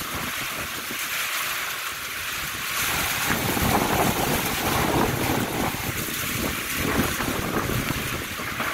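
Strong storm wind gusting with rain, blowing hard on the microphone; the low rumble of the gusts builds up about three seconds in.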